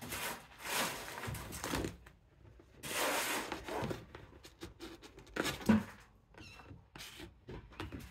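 A kitten's claws scrabbling and scratching on a fabric-and-mesh playpen wall as it climbs, in two long rustling bursts over the first four seconds, followed by shorter scratches and light knocks.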